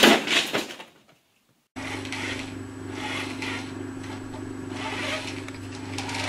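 A stiff paper bag rustles and crackles loudly as a startled cat bolts away from it, dying out within the first second. After a short silence a steady low hum starts with faint rustling.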